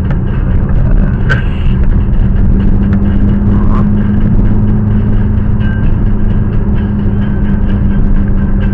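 Car driving at a steady cruise, heard from inside the cabin: a constant low drone of engine and tyre noise with a steady hum that doesn't change in pitch.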